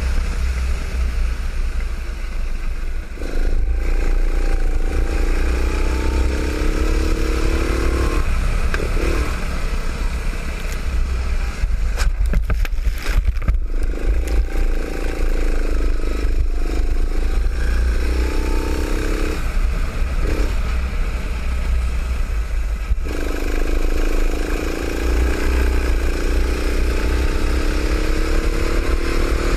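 Go-kart engine running hard, its pitch climbing in long rises and falling away several times as the driver lifts off for corners, with a constant low rumble underneath.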